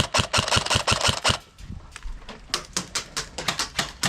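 Airsoft guns firing: a fast string of sharp shots for about a second and a half, a short pause, then steadier shots at about six a second.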